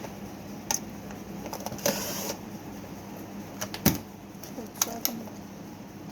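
Scattered clicks and knocks of an electric fan being handled and its switch worked during repair, with a short rustle about two seconds in and one louder knock about four seconds in, over a faint steady hum.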